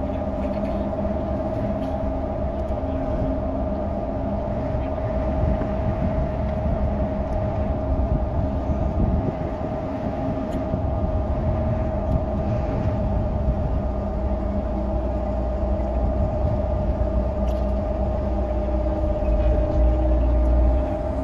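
Large ferry's machinery running steadily while it manoeuvres to dock: a low rumble under a constant mid-pitched hum, the rumble swelling near the end.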